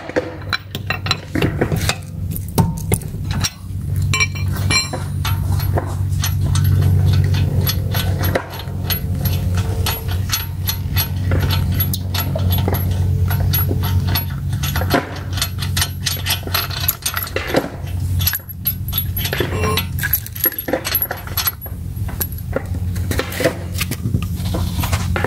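Lug nuts being loosened with a steel lug wrench and spun off a car's alloy wheel by hand: repeated light metallic clinks and rattles of wrench and nuts, over a steady low hum.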